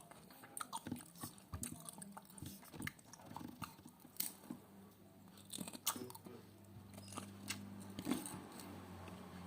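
A person chewing and crunching food close to the microphone, with sharp crunchy bites scattered throughout. A faint low hum comes in about halfway.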